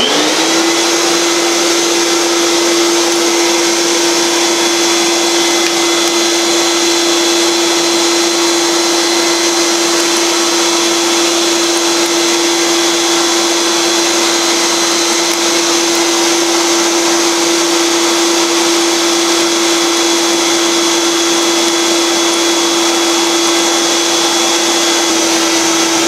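Shop vac switched on right at the start, rising quickly to a steady whine and running at full speed as its bare hose sucks dust out of refrigerator condenser coils.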